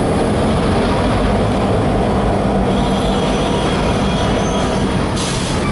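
Freight cars of a short train, including grain hoppers, rolling past close by: a steady loud rumble of steel wheels on the rails, with a faint high wheel squeal in the second half.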